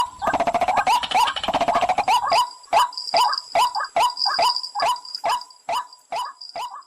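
Repeated call of the pullakodi, a water bird, played as a hunting lure: a short hooked call about two and a half times a second, with a dense run of rapid harsh chattering in the first two seconds.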